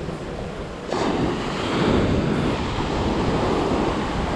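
Surf breaking on the beach, with wind buffeting the microphone; the wash gets louder about a second in.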